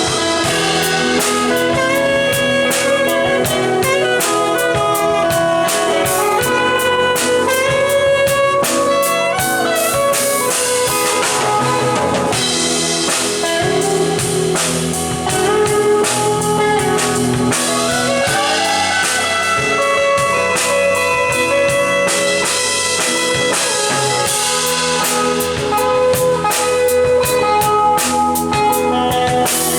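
Live soul band playing: drum kit keeping a steady beat under guitar, with a lead melody bending up and down in pitch.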